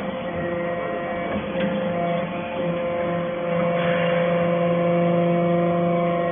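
Baling and compacting press for steel wire chips running, a steady machine hum with a few light clicks.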